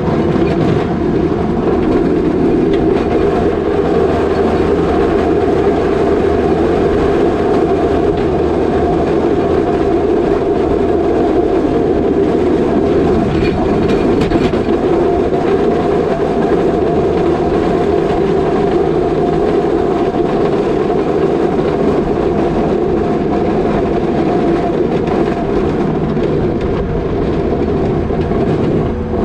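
New Holland L220 skid steer's diesel engine running steadily, with a steady high tone over the drone of the engine.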